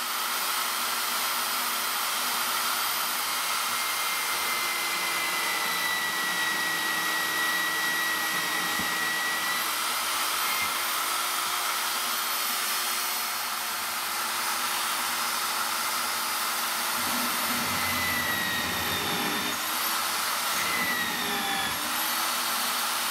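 Electric hand drill running steadily with a twist bit drilling through a thin metal protractor, a continuous motor whine. The pitch dips briefly a couple of times near the end as the motor is loaded.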